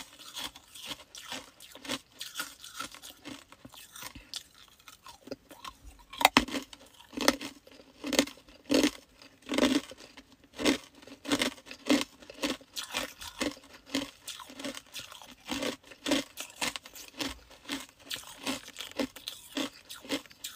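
Chunks of hard ice crunching between teeth as they are bitten and chewed: a steady run of sharp crunches, about one or two a second, loudest about six seconds in.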